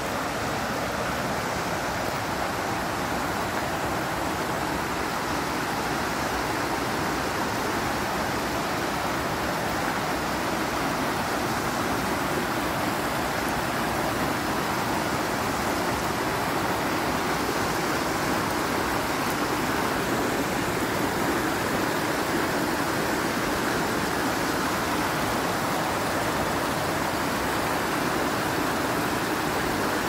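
Water pouring over a low, rocky spillway waterfall and rushing through the shallow creek below it: a steady, unbroken rush.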